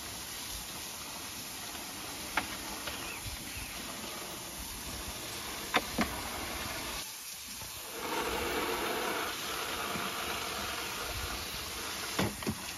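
Water spraying from a garden hose: a steady hiss that cuts out briefly about seven seconds in and comes back louder, with a few short sharp clicks.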